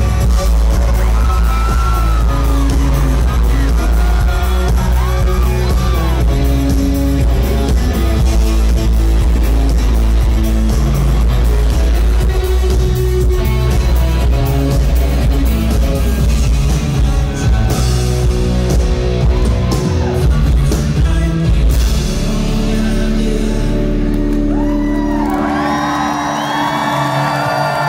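Live band playing on stage with heavy bass and drums until the song ends about 22 to 25 seconds in. The audience then cheers and whoops near the end.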